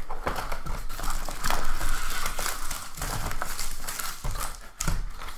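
Foil-wrapped trading card packs crinkling and crackling as they are handled and lifted out of their cardboard box, with sharp clicks and rustles throughout.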